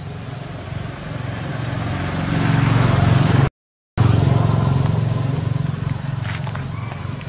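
A motor vehicle's engine passing close by, its hum growing louder over the first three seconds or so and then slowly fading. The sound cuts out completely for about half a second midway.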